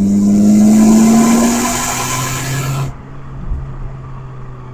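1991 Honda Accord's four-cylinder engine pulling under throttle, its note climbing slowly with a loud intake and exhaust rush. About three seconds in the rush cuts off sharply, and the engine drops to a lower, steady running note.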